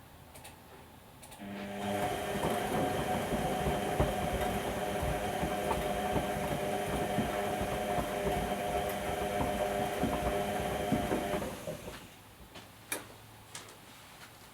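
Whirlpool Indiana 1400 washing machine turning its drum in the wash cycle: the motor starts about a second and a half in with a hum that steps up in pitch, runs steadily with a clatter of small knocks from the toy ducks tumbling in the drum, and stops about ten seconds later, followed by a few faint clicks.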